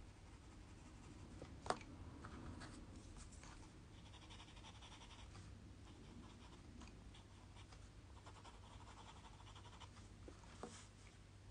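Faint scratching of pencils shading on paper: a coloured pencil, then a white charcoal pencil, in short strokes that come and go. There is one light tap about two seconds in.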